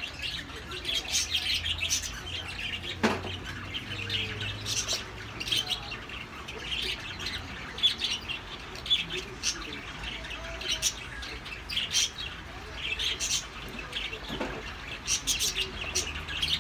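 Birds chirping over and over in short calls, with a low steady hum underneath and a couple of dull knocks.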